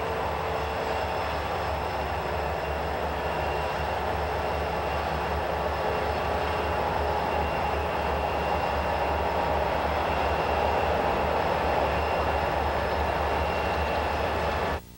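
Diesel freight train powered by EMD SD35, SD40-2 and SD45 locomotives running in a steady rumble with a low engine hum and a few faint steady high tones. The sound cuts off abruptly near the end.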